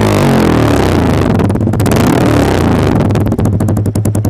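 Yamaha R15 V3's 155 cc single-cylinder engine running through an aftermarket slip-on exhaust. Its revs fall away after a throttle blip, and from about three seconds in it settles into a lumpy idle with distinct, rapid exhaust pulses.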